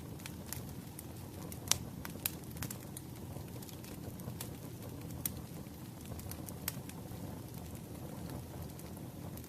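Firewood burning: a steady low rush of flame with sharp crackles and pops scattered through it, the loudest two close together about two seconds in.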